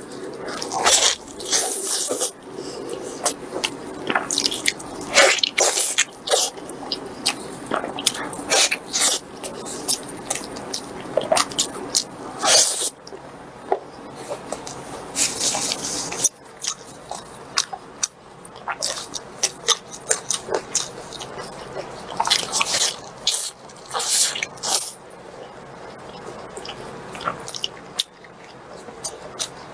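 Close-miked wet chewing, smacking and slurping of someone eating in mukbang style: a steady run of short, irregular wet clicks and squelches.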